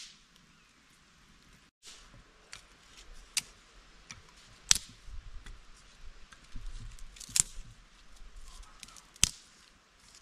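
Irregular sharp knocks and clicks of hard objects being handled, five louder ones spread out among fainter ticks.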